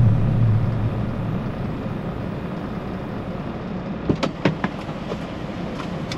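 Semi-truck engine idling steadily, heard inside the cab, with a low tone fading out in the first second. A few sharp knocks come about four seconds in, as the driver reaches the open cab door and starts climbing back in.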